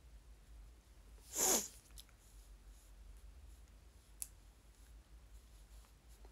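A single short, sharp burst of breath about a second and a half in, hissy and falling in pitch, then a faint click a few seconds later.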